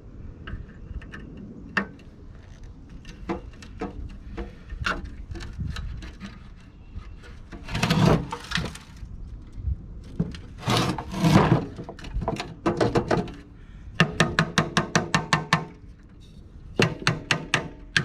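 Hand tools working on a rusted sheet-metal heater housing during disassembly. Scattered clicks and knocks come first, then two scraping bursts, then quick runs of ringing metallic taps near the end.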